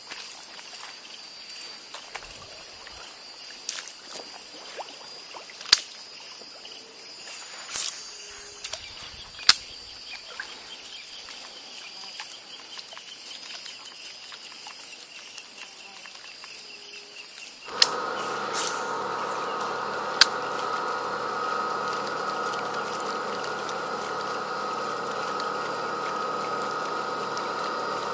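Outdoor insect chirring with a few sharp clicks. About two-thirds of the way in, a louder, steady drone made of several held tones starts suddenly and takes over.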